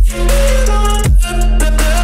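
Hip-hop backing track with no vocals: a deep held bass note and sustained melodic tones, with a heavy kick drum hit near the start and again about a second in.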